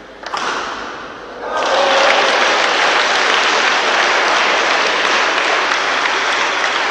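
A sharp hit just after the start, then spectators applauding and cheering. The applause swells and from about a second and a half in holds loud and steady: the crowd's reaction to the end of a badminton rally.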